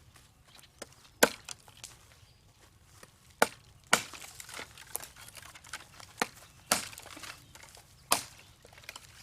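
A series of sharp, irregular knocks or chops, five louder strikes among fainter taps.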